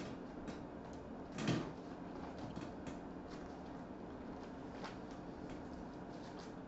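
Thin pages of a Bible being turned and handled: one louder page flip about a second and a half in, then a few faint rustles, over a steady low room hum.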